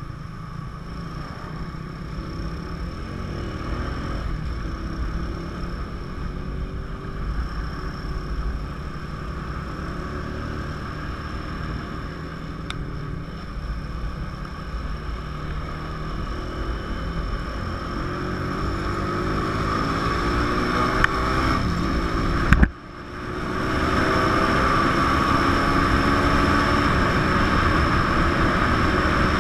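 A 150 cc motorcycle's engine running under way, heard from the rider's seat with wind rushing over the microphone. Its pitch climbs as it accelerates in the latter part. Near the end the sound drops out abruptly for a moment and returns louder and steadier.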